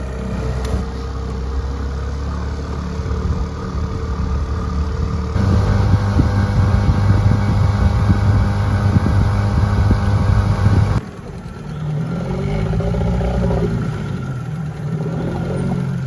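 A small boat's outboard motor running steadily under way; it speeds up about five seconds in and is throttled back suddenly about eleven seconds in.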